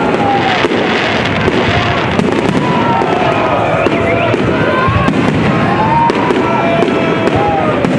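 Fireworks display: shells bursting and crackling overhead in quick, irregular succession, over the voices and shouts of a crowd.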